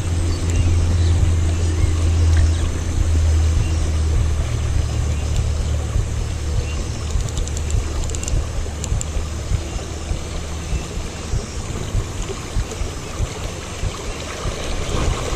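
Shallow stream water rushing around the wading angler, a steady hiss of current. A low rumble is strongest in the first seconds and fades away by about halfway through.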